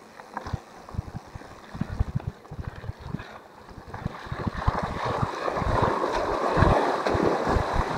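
Wind buffeting the microphone in uneven low thumps. About halfway through, the hiss of rushing river water swells up and stays loud to the end.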